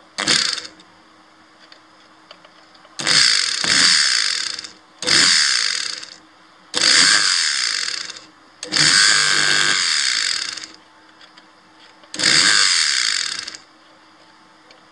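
Bare blender brushed motor switched on in short bursts of one to two seconds, about six times. Each time it whirs up suddenly at high speed and winds down when cut. Its commutator has just been cleaned with sandpaper, but it still isn't working as it should: it smells burnt.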